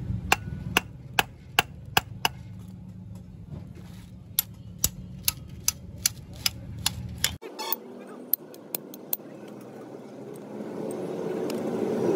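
Hand hammer striking a steel differential bearing housing and its bearing cup from a Fiat 480 tractor: sharp metallic blows about two a second, a run of six, a short pause, then about eight more, followed by a few lighter metal taps.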